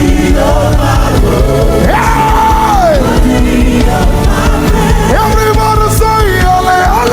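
Live gospel worship music: a loud band with a singer holding long, wailing notes that slide down at their ends.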